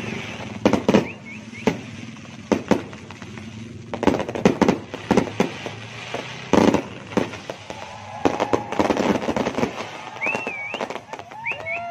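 Fireworks and firecrackers going off: an irregular series of sharp bangs and crackles, several each second, with a few wavering whistle-like tones near the end.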